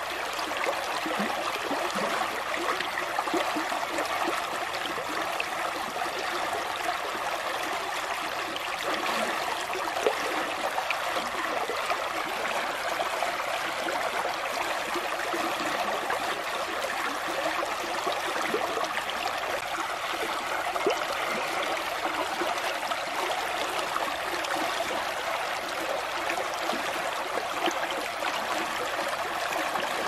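Shallow river water running over mossy rocks: a steady rush with many small irregular splashes.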